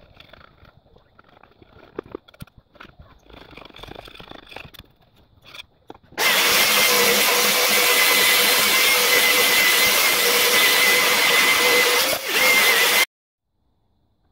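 Electric belt sander running steadily on wood with a constant whine, starting about six seconds in and cutting off abruptly about a second before the end. Before it, faint scratching of sandpaper rubbed by hand on the desk top.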